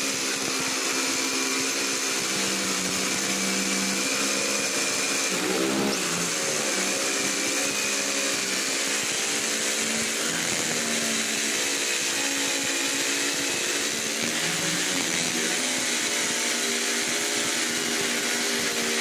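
Electric jigsaw running continuously as its blade cuts a curve through laminated particleboard. The motor's pitch wavers a few times as the blade loads in the cut.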